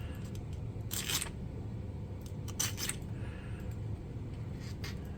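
Hand file scraping across a key to shave down a cut: three short strokes spread over the few seconds.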